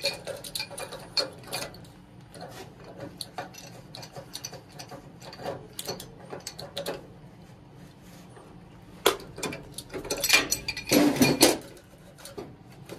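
Irregular clicks and clanks of metal tools and plumbing fittings being handled, with a burst of louder knocks and rattling near the end.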